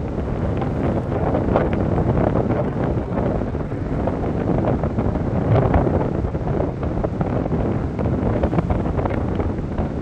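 Strong wind blowing over the microphone in uneven gusts.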